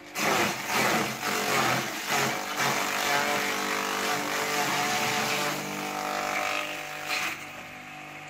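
Small electric grass chopper cutting a bundle of fresh green fodder grass pushed into its chute: loud ragged chopping and shredding over the motor's steady hum for about seven seconds, ending with a short burst. Near the end the chopper runs on empty, humming.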